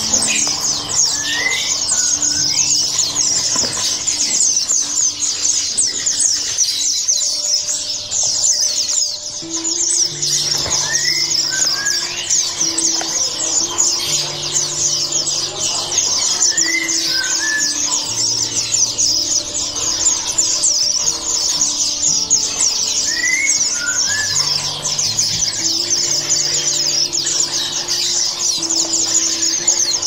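Dense high-pitched twittering and chirping from many caged small songbirds, with a short rising whistled call every few seconds, over background music of low held notes.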